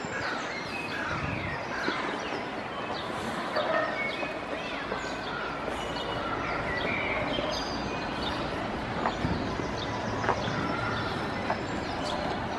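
Outdoor ambience: a steady background hum with many short bird chirps scattered through it.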